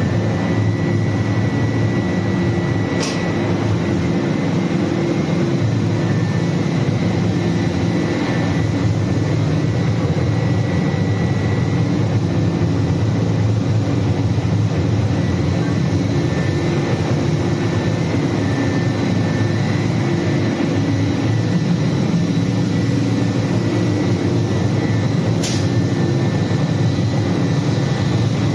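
Steady, loud running noise of a 15 t/h biomass-fired steam boiler plant in operation: a constant low hum and rush with a faint high whine above it. Two faint ticks, one a few seconds in and one near the end.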